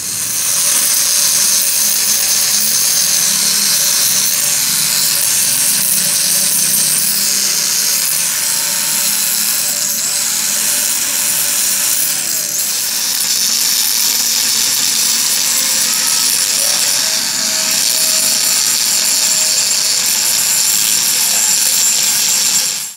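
Hand-held electric angle grinder running steadily under load, its disc grinding down a steel weld bead inside the flanged bore of a truck rear axle housing.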